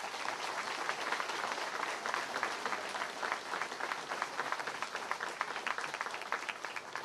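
Crowd applauding: many hands clapping in a dense, steady patter that begins to die down near the end.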